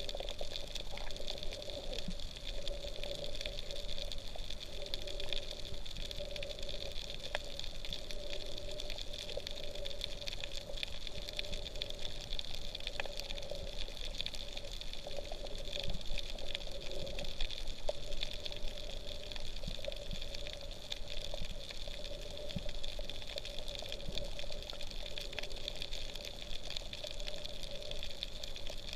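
Underwater ambience picked up through a GoPro camera's waterproof housing: a steady hiss with a constant hum, dotted with many faint crackling clicks.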